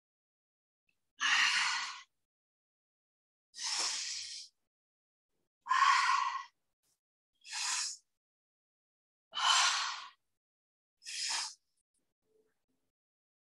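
A woman breathing audibly through an exercise set: six short, breathy rushes of air, about one every two seconds, with silence between.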